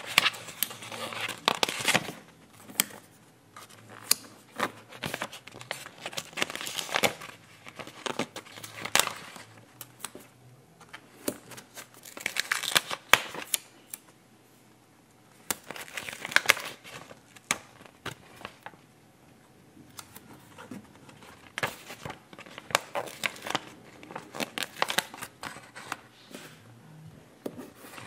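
Paper sticker sheets rustling and crinkling as stickers are peeled off their backing and pressed onto a notebook page: irregular scrapes and taps, with a short lull a little before halfway.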